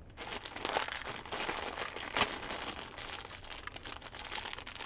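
A black plastic blind bag being crinkled and worked open by hand to get a mini vinyl figure out: a continuous run of crinkles and sharp crackles that stops at the end.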